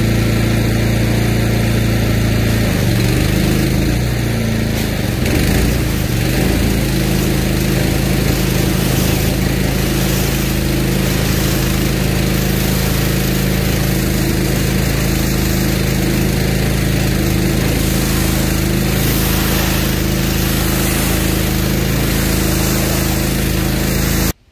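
Honda GX390 single-cylinder engine running a pressure washer fitted with a freshly replaced pump, with the hiss of the water jet from the spray wand. The engine's note changes a few seconds in, then holds steady until it cuts off abruptly near the end.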